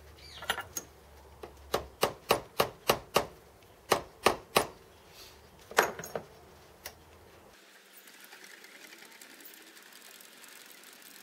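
Quick runs of sharp metallic clicks, about three a second, from hands-on work at a small home-built Gingery milling machine, then the machine's motor starts and runs steadily from about eight seconds in.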